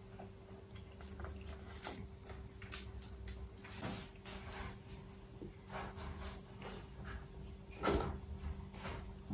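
Small irregular clicks and crackles of fingers peeling the thin shells off cooked shrimp, over a faint steady hum. About eight seconds in comes one louder short puff of breath through pursed lips.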